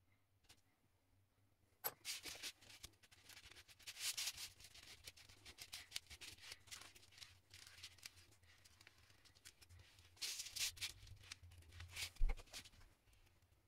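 A sheet of coarse 40-grit sandpaper rustling and scraping as it is folded, pressed and rubbed by hand against a wooden worktop, starting about two seconds in. There is a single knock about twelve seconds in.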